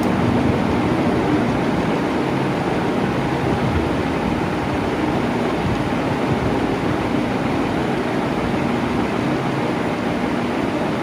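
Electric fan running steadily at constant speed: an even whoosh of moving air with a faint motor hum.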